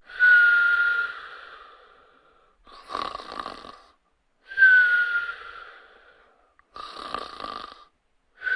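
Cartoon-style snoring sound effect: a rattling snore on the in-breath, then a whistle on the out-breath, repeating about every four seconds.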